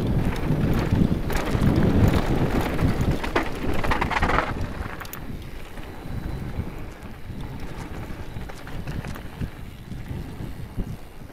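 Specialized Turbo Levo e-mountain bike rolling fast down a dirt and gravel trail: tyres crunching over loose ground and the bike rattling, with wind buffeting the action-cam microphone. Louder and rougher over the first few seconds, with a brief hiss about four seconds in, then a smoother, quieter run.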